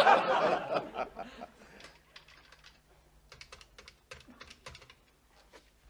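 Studio audience laughter fades out within the first second. Then a string of faint, short clicks and taps runs over about three seconds.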